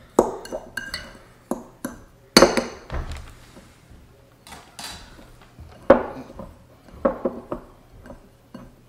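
A dry brown-sugar and salt cure being stirred in a small glass bowl, first with a metal fork and then by hand: a scattering of sharp clinks of metal and glass against the bowl, the loudest about two and a half seconds in.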